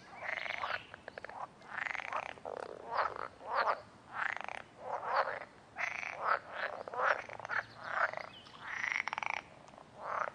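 Frogs croaking in a steady chorus: short rasping calls, about two a second, overlapping one another.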